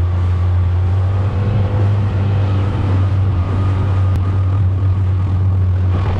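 Mercury 15 hp outboard motor running steadily at about quarter throttle as it pushes an inflatable dinghy at planing speed. The sound is an even, low drone that holds constant pitch throughout.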